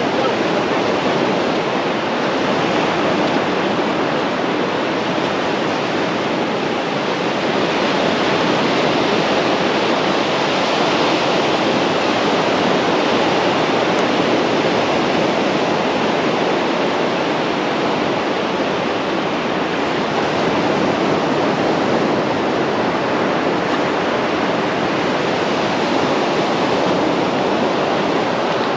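Surf breaking on a sandy shore, a steady rush of waves without a break.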